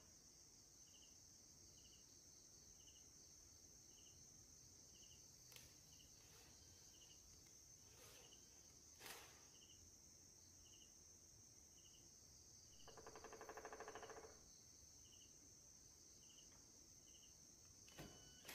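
Near silence: a faint steady hiss with a faint high chirp repeating about twice a second, a few soft clicks, and one short buzzing trill about two-thirds of the way through.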